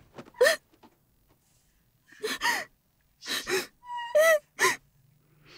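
Several short, wordless vocal sounds from people, gasps and exclamations, one of them high-pitched with a rising and falling pitch.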